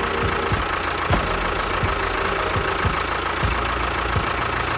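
An engine running steadily at idle with a regular low knock, about two to three beats a second.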